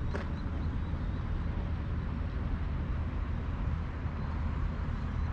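Outdoor background noise: a steady low rumble with a faint even hiss above it.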